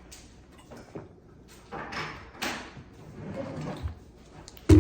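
Eating noises at a bowl of noodles: a few short slurping and utensil sounds, then a dull low thump near the end as something is set down on the table.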